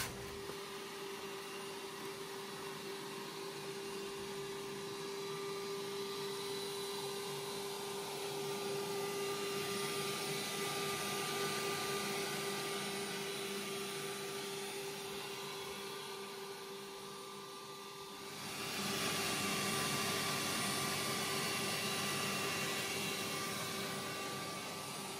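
A small electric motor running steadily, a constant whine over a hiss; the hiss gets louder about three quarters of the way through.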